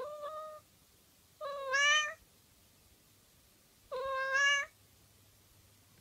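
Domestic cat meowing three times over about five seconds. The second and third meows are louder than the first and rise in pitch at the end.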